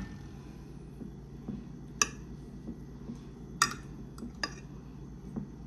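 A metal fork clinking against a glass baking dish while spreading beaten egg over a casserole: three sharp clinks a second or two apart, with fainter taps between, over a steady low hum.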